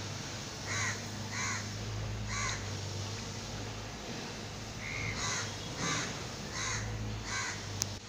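Crows cawing: three short caws in the first couple of seconds, then a run of five from about five seconds in, over a steady low hum.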